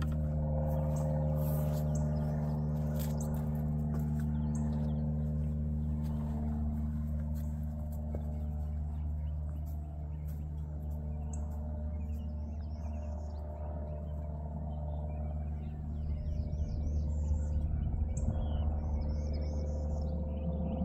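Birds chirping, mostly in the second half, over a steady low machine hum.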